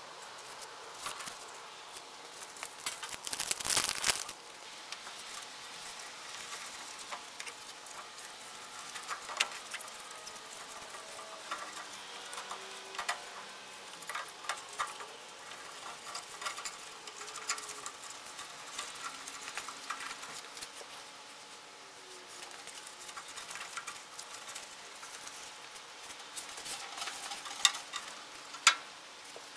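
Scattered light clicks, taps and scrapes of hand tools being worked on a tractor during a fan belt change. A louder noisy burst lasts about a second, a few seconds in, and two sharp clicks come near the end.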